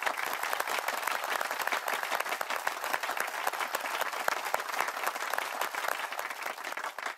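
Applause, many hands clapping in a dense, even patter that starts abruptly.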